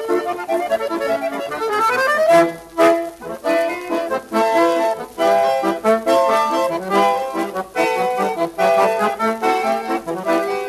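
Instrumental music: a tune with quick runs of notes up and down over held chords.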